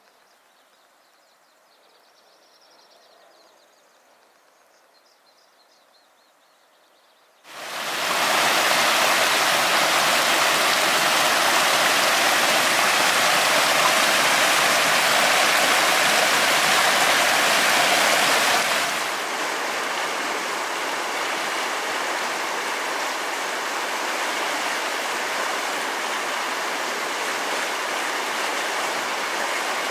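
Faint, near silence for the first few seconds, then a rushing mountain river or stream cuts in abruptly at full strength. About two-thirds of the way in it steps down a little and sounds thinner, losing its deepest part.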